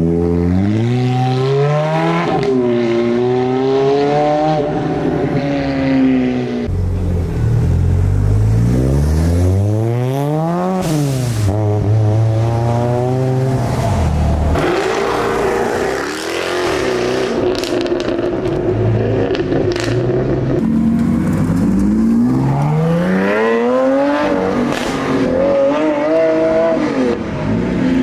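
Performance car engines accelerating hard, one after another: each rises in pitch through the gears with short drops at the shifts, and one is revved up sharply and lifted off about ten seconds in.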